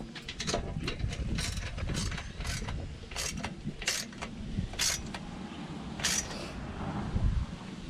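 Ratchet wrench tightening the winch fairlead's mounting bolts: a run of short metallic clicking strokes, about one every half second to a second.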